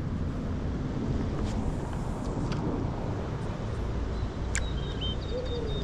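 Steady outdoor background noise with a few faint clicks. Near the end there are brief high-pitched chirps, like small birds.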